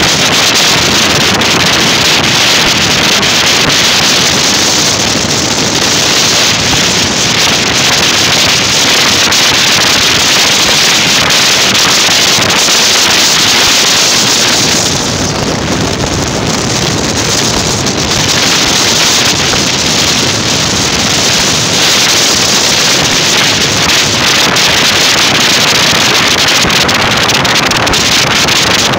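Loud, steady wind rushing over the microphone of a moving vehicle, with road and vehicle noise underneath; the rush eases briefly about halfway through.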